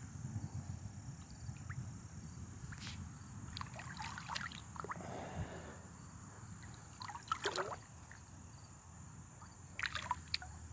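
Faint water sounds at the edge of a gravel pit: light trickling and sloshing over a low wind rumble, with a few short clicks or taps about three, seven and ten seconds in.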